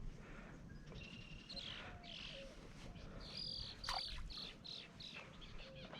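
Birds chirping and calling faintly, many short high notes with a few lower ones, over a quiet outdoor background.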